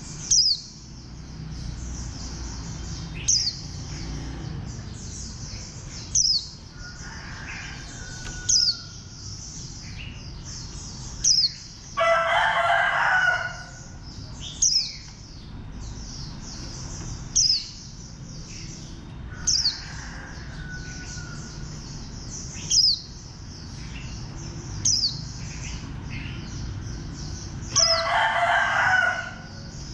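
Caged white-eye (vành khuyên) singing its rapid, continuous twittering 'líu' song, with a sharp, loud chirp every two to three seconds. A rooster crows twice, about twelve seconds in and near the end.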